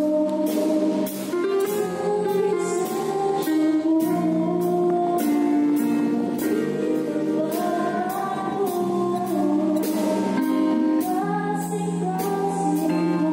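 Worship song played by a band: singing over keyboard chords with a steady drum and cymbal beat.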